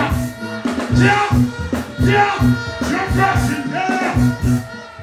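Live dancehall band music with a steady beat, with a vocalist chanting into a microphone over it through the stage PA.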